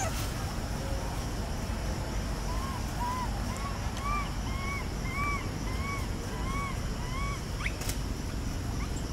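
An animal calling: a series of about a dozen short, evenly spaced notes that rise and fall, about two a second, over a steady low rumble.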